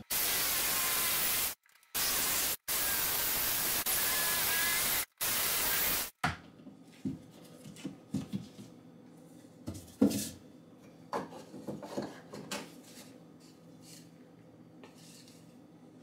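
Power saw cutting a hole in a wall: a loud, steady rasp for about six seconds, in several stretches that stop dead and restart, then scattered light knocks and scrapes.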